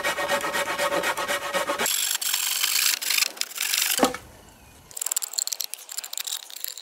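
Hand saw cutting a notch into a wooden post, with rapid rasping strokes. The strokes stop briefly about four seconds in and then start again.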